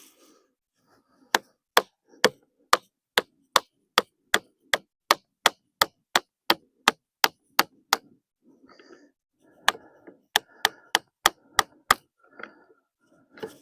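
A wood chisel being struck over and over to cut a joint in a log, about two and a half sharp blows a second. There is a short break with soft scraping, then a second, shorter run of blows.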